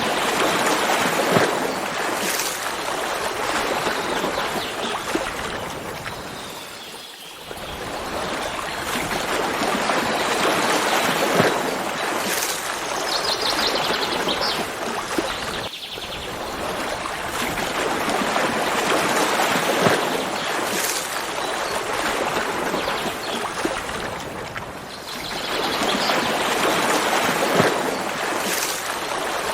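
Running water of a stream, a steady rushing that swells and eases every several seconds, with a few faint high bird chirps now and then.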